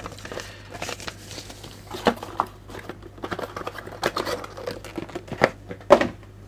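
Handling noises at a desk: a paper sheet rustling and crinkling, with several sharp clicks and knocks, the loudest about two seconds in and again near the end.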